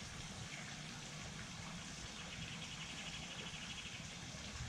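A high, rapid animal trill of evenly spaced pulses, lasting about two seconds and starting about two seconds in, over a steady background hiss.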